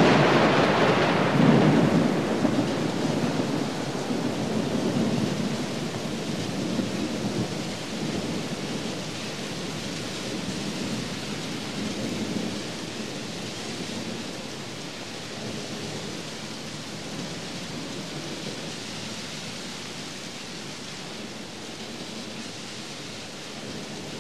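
Steady hiss of rain and road noise with a low, muffled rumble. It is loudest at the start and dies away over the first ten seconds or so.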